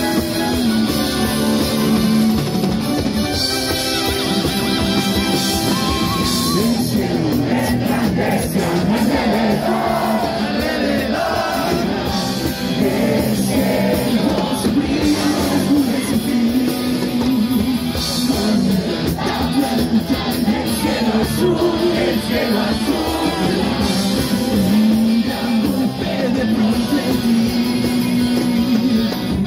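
Live rock band playing a song: a male lead singer over electric guitars, bass and drums, loud and steady throughout.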